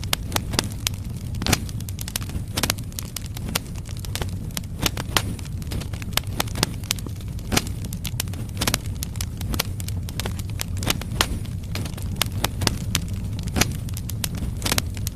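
Firewood logs burning in a fireplace: a steady low rumble of the flames with frequent sharp, irregular crackles and pops.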